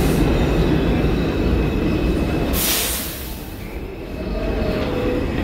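New York City subway train running in the station, a steady deep rumble, with a short burst of hiss about two and a half seconds in.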